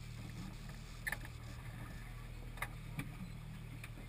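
A fishing boat's engine running with a steady low hum, with a few short sharp clicks or knocks about a second in and again near the three-second mark.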